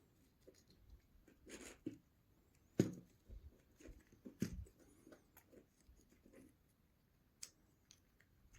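Faint, scattered light taps and clicks of small basswood model pieces being handled and fitted by hand, with two sharper knocks about three and four and a half seconds in.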